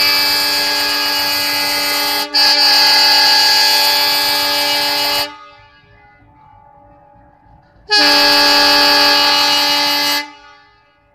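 Indian Railways locomotive air horn sounded by the loco pilot: a long blast with a brief break about two seconds in, then, after a pause of about two and a half seconds, a second blast of about two seconds. The horn calls the train's guard to signal that the train may move.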